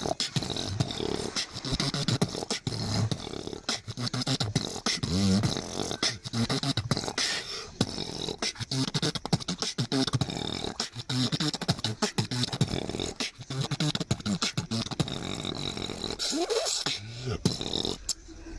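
Solo human beatboxing: a fast, dense stream of mouth-made kick, snare and hi-hat clicks mixed with hummed bass tones, some sliding in pitch. It thins out just before the end.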